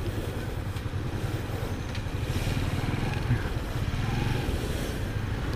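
Small motorcycle engine running steadily at low road speed as it is ridden, with a single short knock a little after halfway.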